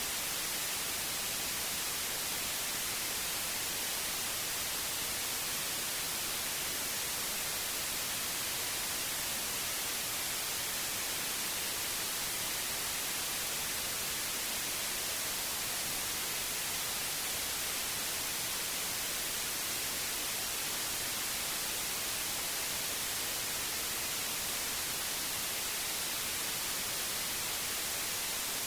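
Steady white noise: an even, unbroken hiss, strongest in the high frequencies, with no change in level or texture.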